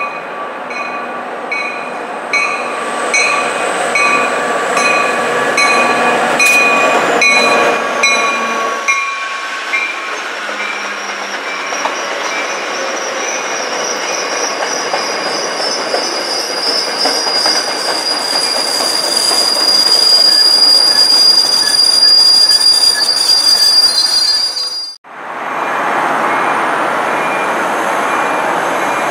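MBTA commuter train's bilevel coaches rolling past, with the wheels squealing in several high, steady tones and one long high-pitched squeal in the later part. The sound breaks off sharply near the end and comes back as plain rolling noise.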